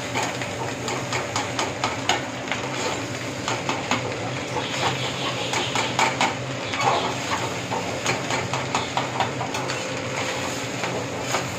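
Metal spatula scraping and clinking against a metal frying pan as fried rice is stirred and tossed, in irregular strokes, over a steady low hum.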